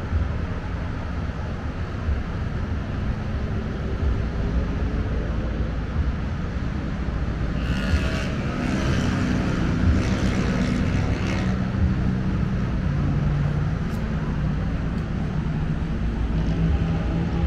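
Steady low rumble of city traffic on the road bridge and boats on the river, heard from high above. A louder passing sound with a pitched hum rises and fades between about eight and twelve seconds in.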